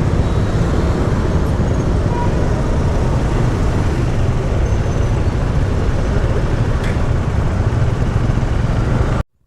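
Steady road noise from a moving vehicle: a continuous low rumble of engine and travel noise. It cuts off abruptly to near silence about nine seconds in.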